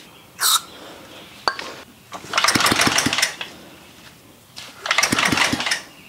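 Short hiss of an aerosol spritz of starting fluid, then two pulls on the recoil starter of an old Tecumseh engine, each about a second of rope whirr and clattering as the engine cranks over without firing. The owner suspects no spark from its points ignition.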